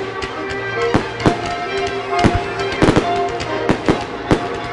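Fireworks shells bursting in a string of sharp bangs, about two a second, over the show's accompanying music with its held notes.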